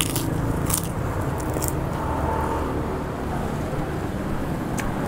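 Steady rumble of road traffic, with a few sharp crunches of a mouthful of sand-fried kerupuk crackers being chewed.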